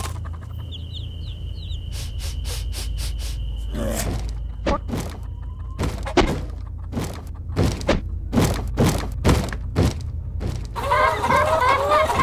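A run of sharp knocks at irregular intervals, a second or less apart, over a steady low hum. Near the end a group of hens starts clucking.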